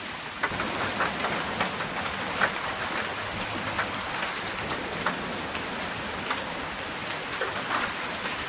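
Steady rain falling, with single drops ticking sharply here and there.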